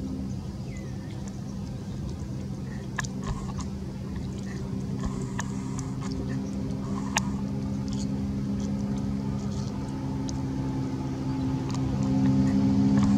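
A motor engine running steadily with a low drone, growing louder near the end, with a few sharp small clicks over it.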